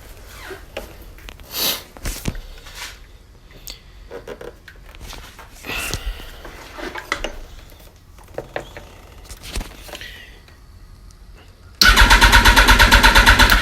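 A few scattered clicks and knocks, then near the end the Yamaha R1's electric starter cranks its inline-four engine in a loud, fast, even pulsing for under two seconds without the engine firing. The bike cranks but won't start.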